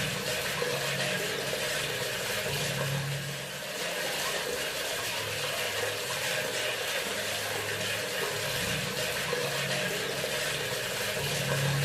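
Bathroom sink faucet running steadily, water pouring into the basin, with a low hum that swells and fades every few seconds underneath.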